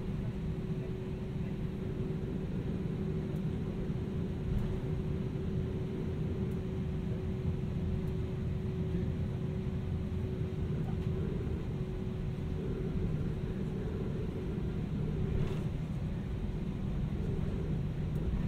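Cabin noise of an Airbus A320-200 with its IAE V2500 engines running: a steady low rumble with a held hum over it, and a couple of faint ticks.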